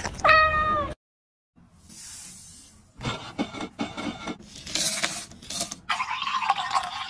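A brief cat meow that falls in pitch at the end, then a soft hiss and a long stretch of gritty scraping and rubbing: a glass rim being pressed and twisted in coarse sugar crystals, with small clicks throughout. The scraping is louder and denser near the end.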